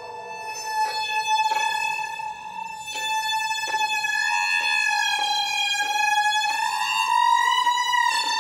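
Violin holding one long high note with rich overtones, wavering slightly in pitch and broken by brief dips every second or so. The sound runs through live electronic processing whose intensity is driven by the player's body movement, tracked by camera.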